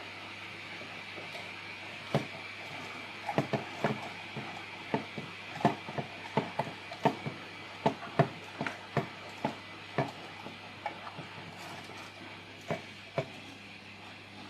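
Irregular sharp plastic clicks and light knocks, about two or three a second, from the parts of a 3D-printed rubber band car being handled and turned.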